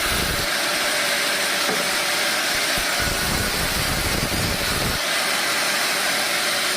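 Sawmill machinery running with a steady hissing, rushing noise. A deeper rumble comes in at the start, again from about three to five seconds in, and at the very end.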